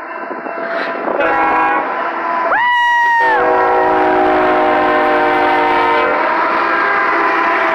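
Union Pacific diesel freight locomotive's air horn sounding a chord of steady tones as it passes close by at a grade crossing, with a short, louder blast about two and a half seconds in, over the running of the locomotives.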